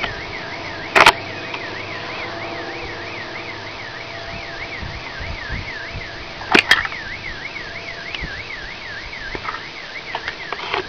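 Car alarm warbling, its tone sweeping up and down about three times a second, until it stops about nine seconds in. It sounds over a steady background drone, and two sharp knocks come about a second in and again past the middle.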